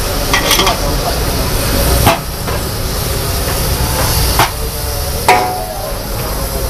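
Mee goreng noodles sizzling in a hot wok while a metal spatula stirs and scrapes them, with about four sharp clanks of the spatula against the wok. The loudest clank comes a little past five seconds and rings briefly.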